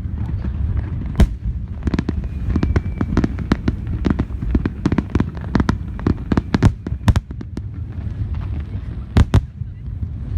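Aerial fireworks bursting: a rapid run of sharp bangs and crackles over a low rumble, with two loud bangs close together about a second before the end.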